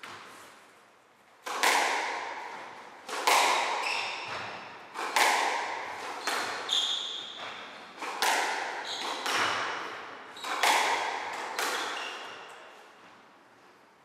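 Squash rally: the ball is struck by rackets and smacks off the court walls, one sharp crack every one to two seconds, each echoing around the court. The cracks stop about twelve seconds in as the point ends.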